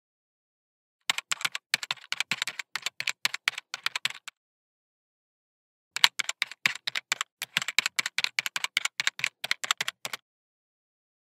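Typing sound effect: rapid key clicks in two runs of about three and four seconds, with dead silence before and between them.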